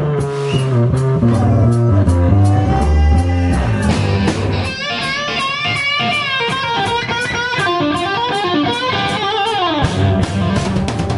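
Live rock band with an electric guitar solo played through a Marshall amp. About halfway through, the bass and drums thin out and the guitar carries on alone with high, bent, wavering notes. It ends in a downward slide just as the full band comes back in near the end.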